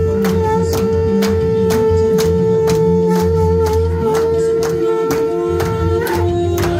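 Temple aarati music: one long held wind-instrument tone over fast, even metallic strikes, about four a second, and a drum beat. The held tone breaks off and drops to a lower note about six seconds in.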